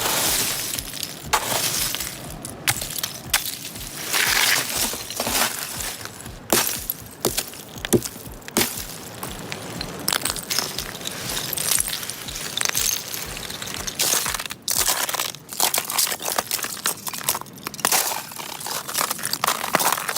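Ice cracking and breaking up under pressure: an irregular run of sharp cracks, crunches and glassy clinks of shattering pieces.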